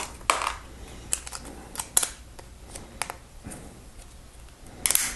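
Hard plastic Lego bricks clicking and clattering as pieces are handled and pressed together, in a few separate sharp clicks, with a louder clatter near the end.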